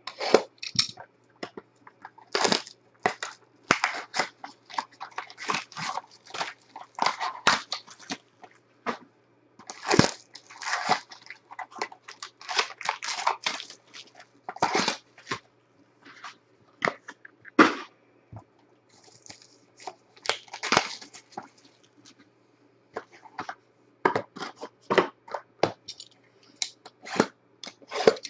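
Foil baseball card packs and plastic wrap crinkling and crackling in irregular bursts as sealed packs are handled and unwrapped, over a faint steady low hum.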